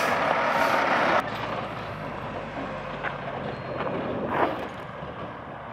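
Diesel semi truck hauling a forklift on a lowboy trailer, its engine running as it drives by. The sound is loud at first, drops abruptly about a second in, and goes on as a quieter low engine hum.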